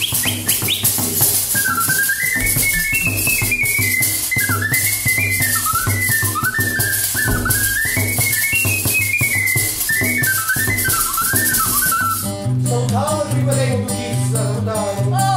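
Live folk-band instrumental: a high, whistle-like melody with sliding, bending notes plays over low repeating bass notes and a shaker-like rattle. About twelve seconds in, the high melody stops and a lower melody line takes over.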